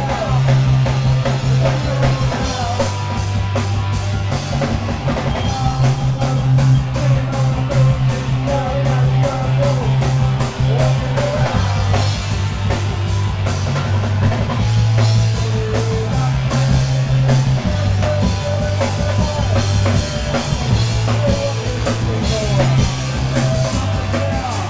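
Punk rock band playing live, loud: drum kit, guitar and a bass line stepping between low notes every second or two.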